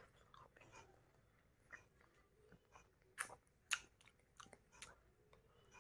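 Faint wet mouth clicks of someone sucking on a hard lollipop, with two sharper clicks around three and a half seconds in.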